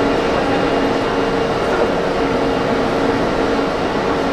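A 651 series limited express electric train standing at the platform, its onboard equipment giving a steady hum with a held mid-pitched tone and a lower one that comes and goes.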